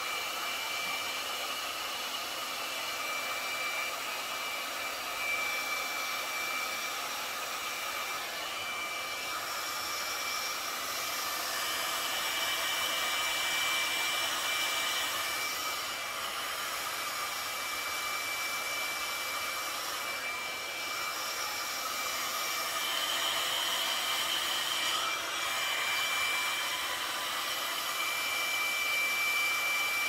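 Conair Infinite Spin hot-air brush running: a steady blowing rush of its fan with a thin, high steady whine over it that drops out briefly now and then.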